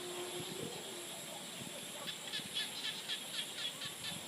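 Frogs calling: a run of quick, high chirps at about four a second starts about halfway in, over a steady high-pitched background chorus.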